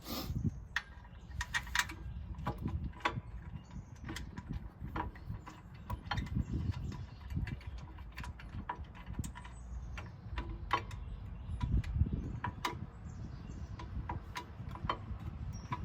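Irregular metallic clicks and knocks of hand tools and brake parts being handled while refitting a rear brake caliper, over a low rumble.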